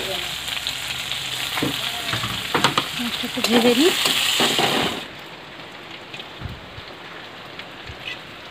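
Onions frying in hot oil in an iron kadai, sizzling, with a spatula scraping and knocking against the pan as they are stirred. About five seconds in the sizzle drops suddenly to a much quieter hiss.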